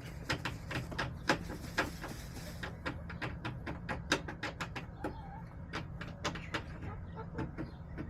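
Backyard hens pecking and scratching: an irregular run of sharp taps and clicks, several a second, over a steady low hum, with a brief soft hen call about five seconds in.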